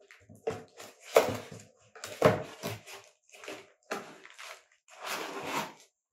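Hard drive in white packing pieces being handled and slid into its cardboard retail box: rustling and scraping, with sharp knocks about a second and two seconds in as the loudest sounds.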